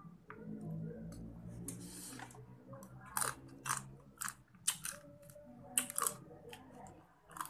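A person chewing mouthfuls of crab noodles eaten by hand, with a run of short, sharp mouth smacks from about three seconds in.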